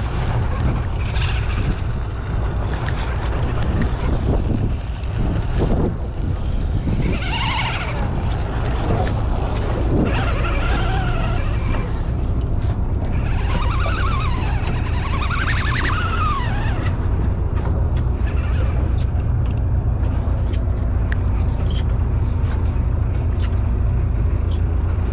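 Steady low rumble of the sportfishing boat under way, its engine drone mixed with wind on the microphone, with faint rising-and-falling calls in the middle.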